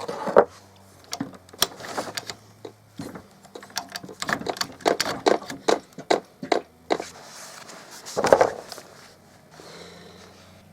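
Irregular sharp clicks and knocks of hard parts being handled, with a louder clatter about eight seconds in and a faint steady low hum underneath.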